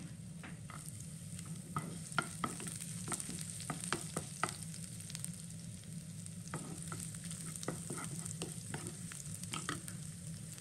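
Chopped garlic, cumin seeds and curry leaves sizzling in hot oil in a nonstick frying pan, with a wooden spatula scraping and tapping the pan in two spells of stirring strokes.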